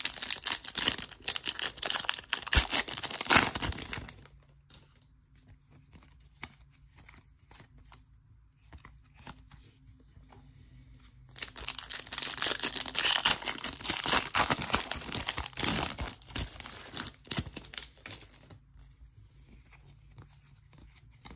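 Foil wrapper of a trading-card pack being torn open and crinkled in the hands, in two spells: one lasting about four seconds at the start, another starting about eleven seconds in and lasting about six seconds.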